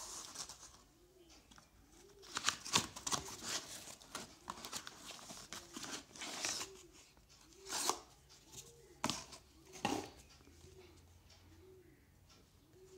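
Cardboard shipping box and paper wrapping rustling and scraping as they are handled and a phone's retail box is pulled out. The noise comes in irregular bursts, loudest a few seconds in and again around eight to ten seconds.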